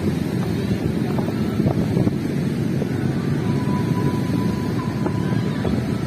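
Strong wind buffeting the microphone, a steady low rumble, with a faint thin high tone for a couple of seconds midway.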